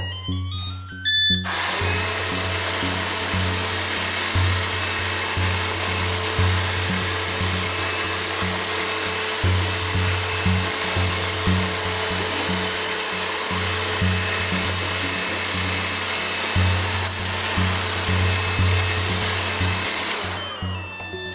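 Q7 robot vacuum cleaner running, a steady whirring rush of its suction fan and brushes, starting about a second and a half in and dying away near the end. Background music with a steady beat plays underneath.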